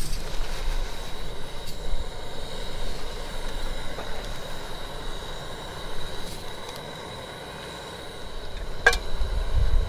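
Steady background rumble and hiss with a faint, thin high tone running through it. About nine seconds in, a single short clink as the spoon knocks against the metal cooking pot.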